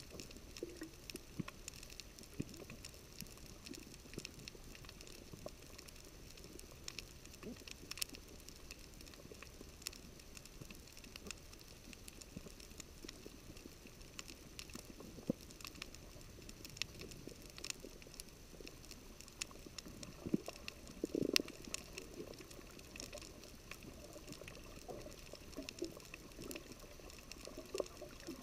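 Underwater coral reef soundscape: a steady crackle of scattered sharp clicks, typical of snapping shrimp, with a short low burbling sound about twenty seconds in.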